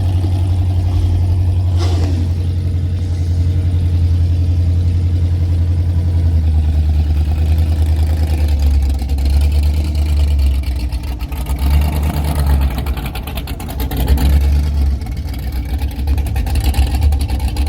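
BMW N54 twin-turbo straight-six engine pulling the car along, a loud steady low drone that dips briefly a few times in the second half, with the owner asking whether the known misfire will show.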